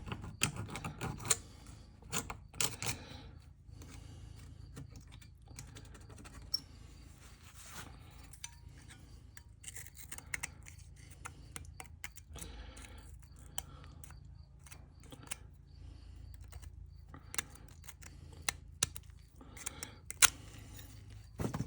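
Irregular small scrapes, clicks and taps of a hand tool working at the crimped seam of an old fuel-tank sending unit's metal housing, over a faint steady low hum.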